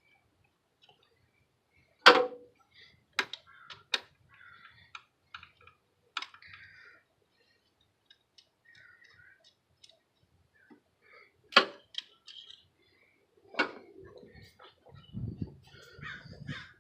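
Scattered sharp clicks and clacks of hand tools and ignition parts being handled during coil and spark plug removal, the loudest about two seconds in and near the middle, with faint bird chirps between them.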